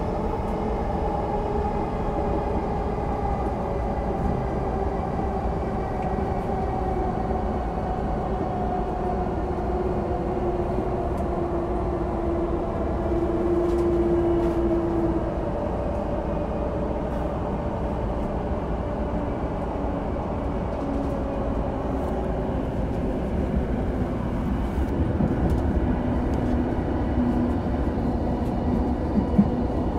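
Onboard running sound of a Chuo Line E233-series electric train: steady wheel rumble on the rails, with a traction-motor whine that slowly falls in pitch as the train slows. A few rail-joint clicks come near the end.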